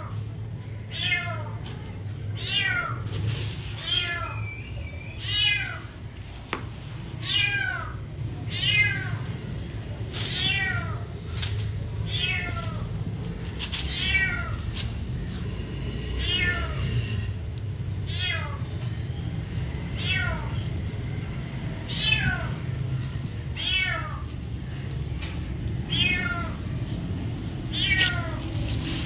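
A cat meowing over and over, a short call every one to two seconds, each one falling in pitch, over a steady low hum.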